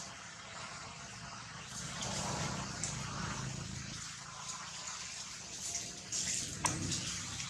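Dry fallen leaves rustling and crackling as a macaque walks over the leaf litter, with one sharp crackle near the end.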